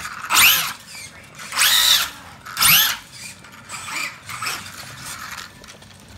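Hobby-grade electric RC car's motor and drivetrain whining in short full-throttle bursts, the pitch rising and falling with each burst. There are three loud bursts in the first three seconds, then several weaker, shorter ones.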